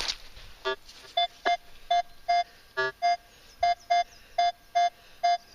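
Minelab metal detector giving target signals as the coil sweeps over a small buried object: about a dozen short beeps, roughly two a second, mostly at one mid pitch, with two lower-pitched beeps among them.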